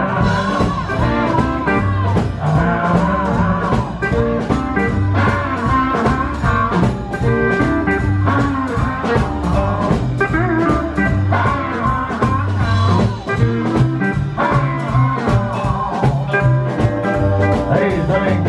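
Live country band playing: electric guitar, pedal steel guitar, upright bass and drums, over a steady beat.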